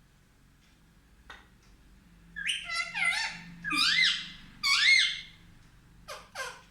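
Pet parrot calling: a run of about five high-pitched, rising-and-falling chirps from about two seconds in, then two short sharp calls near the end.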